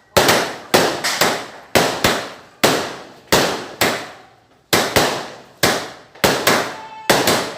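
Fireworks going off: a string of about a dozen sharp bangs at irregular gaps of half a second to a second, each with a short echoing tail.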